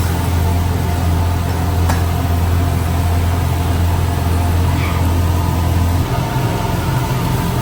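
Machine running with a steady low hum, like an idling engine; its pitch shifts higher about six seconds in.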